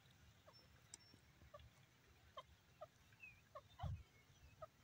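Grey francolin giving faint, short downward-sliding call notes, about two a second, scattered and irregular. A low thump comes near the end.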